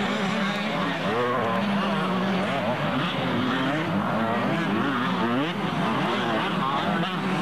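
Several two-stroke motocross bikes running hard together, their engine pitches rising and falling over one another as the riders work the throttles.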